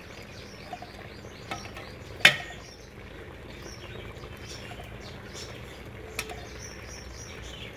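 A steel skimmer clinks sharply once against an aluminium cooking pot about two seconds in, and again more lightly near six seconds, as it stirs cooked-down tomatoes. A steady low background runs underneath, with faint bird chirps.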